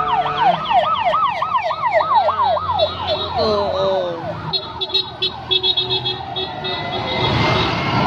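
Emergency-vehicle sirens from a passing parade of ambulances and fire trucks, heard from inside a car. A fast yelp siren warbles about three times a second, then winds down about four seconds in. A rapid pulsing tone follows, and another siren rises near the end.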